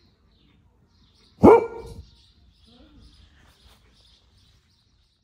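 A single loud dog bark about one and a half seconds in, falling in pitch and lasting about half a second.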